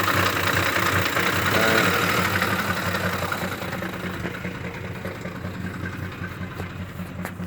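2009 Ford F-150's 5.4-litre V8 idling rough with a chatter while the RPM stays the same, the sound getting quieter from about three seconds in. The intermittent chatter is of unknown cause: mechanics suggested it could be a cam phaser, the timing chain, a VCT solenoid or the oil pump.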